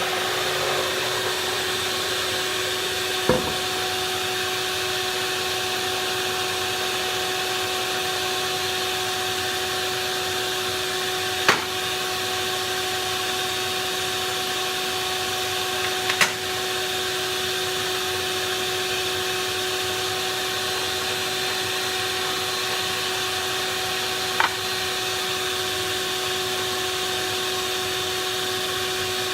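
Skilsaw worm drive table saw running steadily without cutting, a constant whine. A few sharp knocks come through at intervals.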